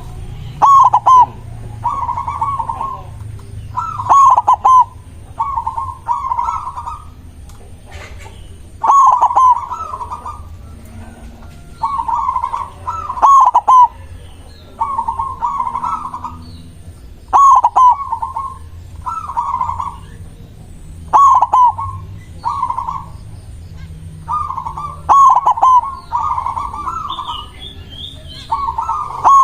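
White zebra dove (perkutut) singing: rapid bursts of short coo notes in phrases repeated every two seconds or so.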